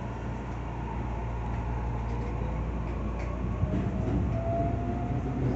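Shin-Keisei 80000 series electric train pulling away from a station, heard from inside the car: the traction motors whine and rise in pitch as it gathers speed, over a low rumble of wheels on rail that grows louder.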